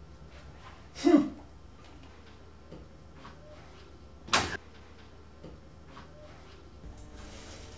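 A door banging shut about a second in, followed by a second loud bang about three seconds later.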